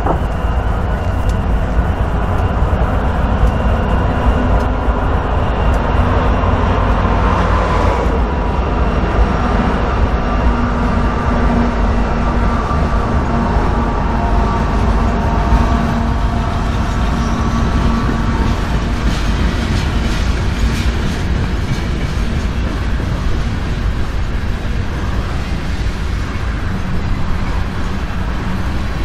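A loaded coal train rolling past: BNSF diesel locomotives go by near the start, then a long string of loaded coal cars keeps up a steady loud rumble and rattle of steel wheels on rail.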